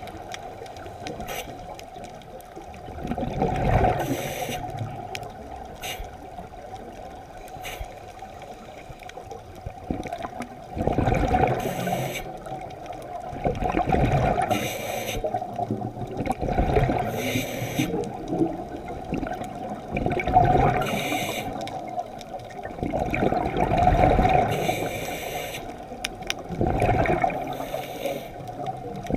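Scuba diver's breathing heard underwater: exhaled bubbles rush and gurgle past the camera, swelling and fading every three to four seconds, with a short hiss between them.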